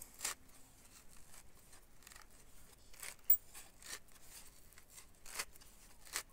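A few short, faint scrapes and light knocks of a wooden formwork frame being handled and shifted against concrete blocks, with one sharper click about three seconds in.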